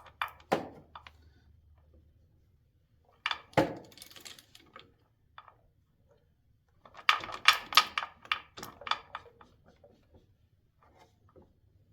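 Ratchet wrench clicking and metal tool clinks in three short bursts with pauses between, as the compensator bolt is backed off a half turn.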